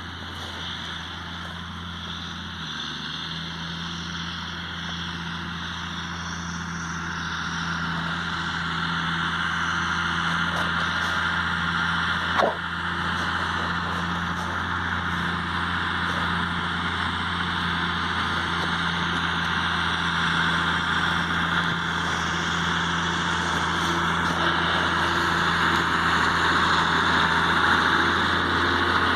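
Tractor engine running steadily, growing gradually louder, with a single sharp click about halfway through.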